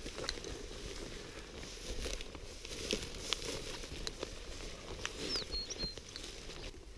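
Footsteps and rustling through dry moorland grass and heather, with scattered small crackles and clicks.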